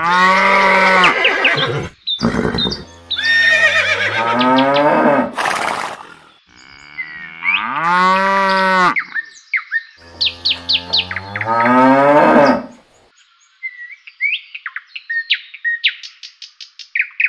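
Cows mooing, four long calls one after another, followed by birds chirping in short high notes near the end.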